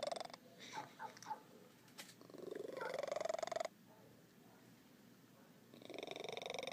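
Tabby cat purring close up, in long rounds with short pauses between them, and a few small clicks in the first pause.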